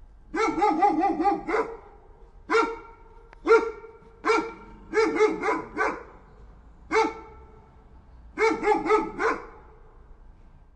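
A dog barking: rapid runs of several barks near the start, in the middle and near the end, with single barks in between.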